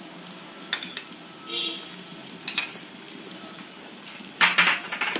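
Yogurt being spooned into frying masala paste in a nonstick pan: a steel spoon clinks against the pan a few times over a faint sizzle, with a short burst of loud clattering about four and a half seconds in.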